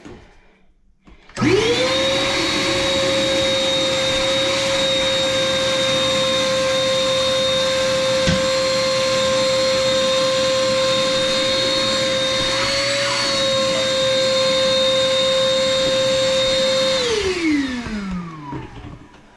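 Wet/dry shop vacuum switched on about a second and a half in, running at a steady pitch, then switched off near the end, its motor winding down with falling pitch.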